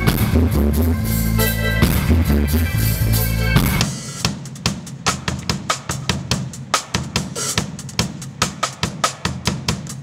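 A reggae band playing, with a deep electric bass line under the drums, until about four seconds in; then the drum kit plays alone, a steady run of snare, tom and kick strikes.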